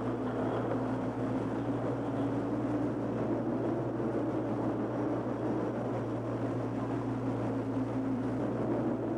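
Steady rushing outdoor background noise, without speech, over a constant low hum.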